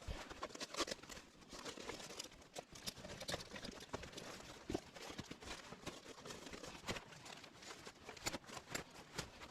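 Faint, irregular rustling with many small clicks and light knocks.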